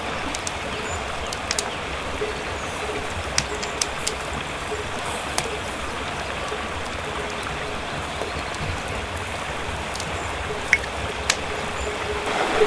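Salmon fillet grilling over wood-fire embers, with scattered sharp pops and crackles from the fire and the cooking fish, over the steady rushing of a river flowing close by.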